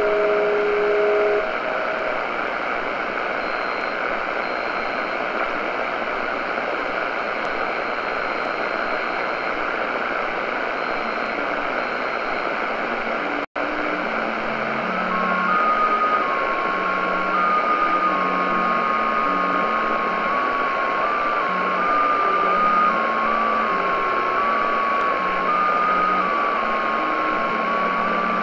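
Shortwave receiver in SSB mode on 7077 kHz with hiss and static, carrying JT65 amateur digital signals: pure tones stepping from pitch to pitch every fraction of a second. The signals heard at the start end after about a second and a half. After a brief cut-out near the middle, two new stepping-tone transmissions come in, one higher and one lower.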